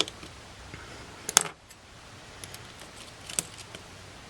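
Small metallic clicks and taps of a precision screwdriver and tiny screws against a camera body during disassembly. The sharpest click comes about a third of the way in, with a few lighter ticks near the end.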